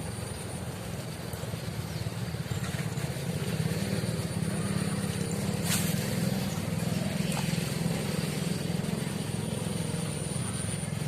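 A small engine running steadily, growing louder about three to four seconds in, with a thin steady high-pitched whine above it and a single sharp click near the middle.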